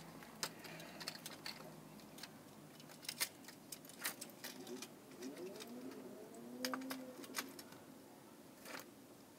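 Faint, scattered clicks and taps of die-cast toy cars being handled and set in place on a plastic toy race ramp.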